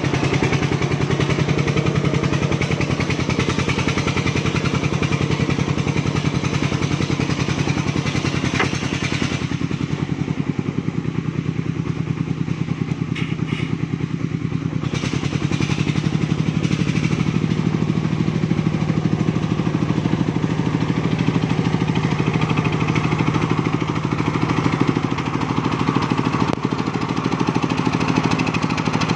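Homemade công nông farm truck's single-cylinder diesel engine chugging in rapid, even beats as it hauls a heavy load of logs up a steep dirt track. It runs a little softer for a few seconds about ten seconds in, then picks up again.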